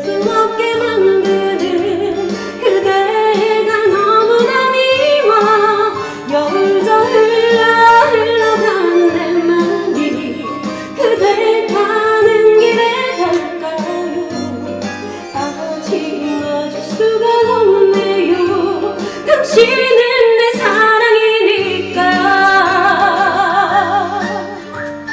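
A woman singing a trot song over instrumental accompaniment, with wavering, held notes.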